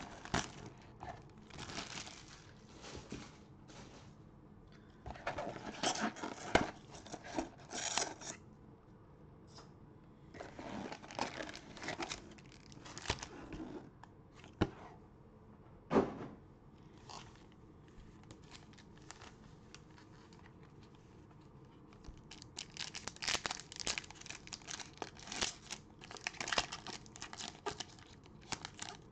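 Plastic shrink wrap being torn and crumpled off a trading-card box, then cardboard flaps opened and a foil card pack handled: irregular bouts of crinkling and tearing, with a single sharp knock about sixteen seconds in.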